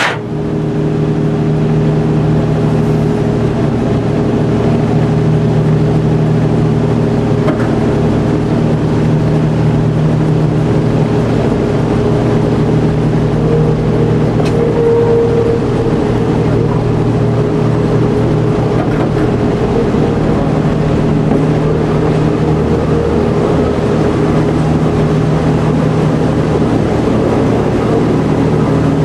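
Railcar M.340's engine running steadily, heard from on board as the car travels along the track. It is a constant low hum with a noisy rumble over it.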